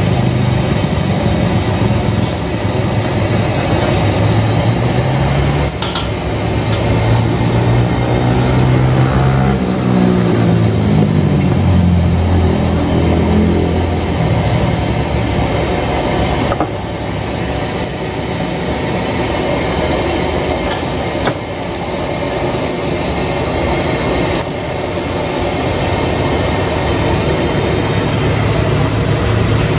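Vegetables sizzling in a wok over a gas burner, with a steady hiss and a few sharp knocks of the metal ladle against the wok. Motorbike engines pass on the road, one rising and falling in pitch near the middle.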